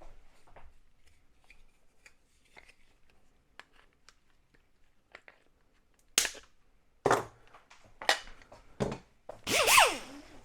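Hand tools working on a plastic trailer-connector housing: faint small clicks, then four sharp snaps about a second apart. Near the end comes a louder plastic rubbing with a creaking squeal that falls in pitch.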